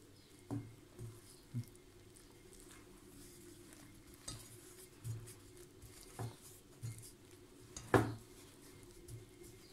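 Wooden spoon stirring flour and liquid into a dough in a glass bowl, with scattered soft knocks of the spoon against the bowl. The loudest knock comes about eight seconds in.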